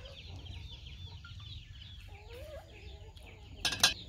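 Chickens calling in the background: a steady stream of short, high, falling cheeps, with a few lower clucking calls about two seconds in. A sudden short loud noise comes just before the end.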